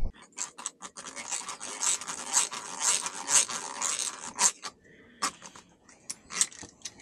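Irregular scratching and scraping strokes, coming thick and fast for about three seconds, then thinning to a few scattered scrapes.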